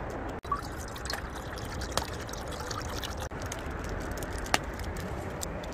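Fire burning in a small camp fire box, a steady rush of flame with scattered sharp crackling pops.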